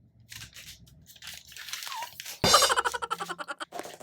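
Crackling and crunching of the iPhone box's packaging being worked open by hand: a run of short crackly strokes. About two and a half seconds in, a sudden louder pitched sound lasts about a second.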